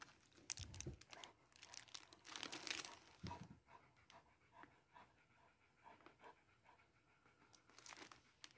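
Great Pyrenees dogs panting quietly in uneven bursts of breath.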